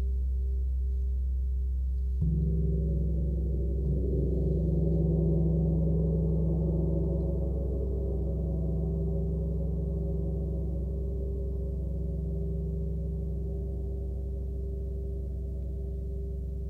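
36-inch Sun Gong played with a soft felt mallet: two strokes, about two seconds in and again nearly two seconds later. Its deep hum, with a fundamental around 32/64 Hz, swells with shimmering overtones and then rings on, slowly fading.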